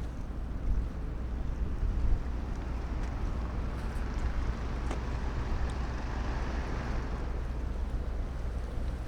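Harbour ambience beside a large car ferry: a steady low hum of ship machinery under a rushing noise that swells for a few seconds in the middle, with a couple of faint ticks.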